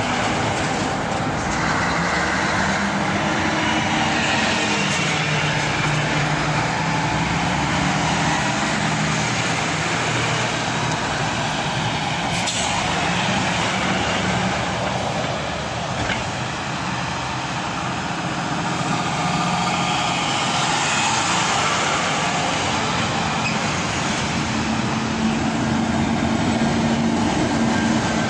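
Heavy vehicles passing close by one after another: a classic Scania articulated lorry hauling a container trailer, a lorry with a long trailer, then a tractor towing a silage trailer. Their diesel engines run and their tyres roll on the road in a steady, loud noise whose engine tone shifts as each vehicle goes past.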